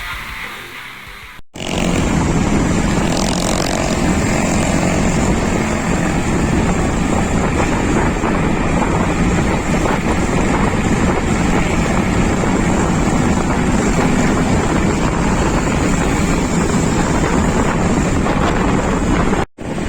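Music fading out, then after a sudden cut about a second and a half in, a loud steady rush of wind on the microphone with a deep rumble beneath, as when filming while moving at speed; it cuts off suddenly near the end.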